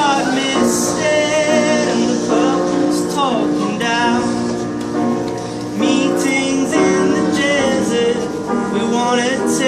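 Live pop-folk song: a man and a woman singing together in harmony over instrumental accompaniment, with long held notes.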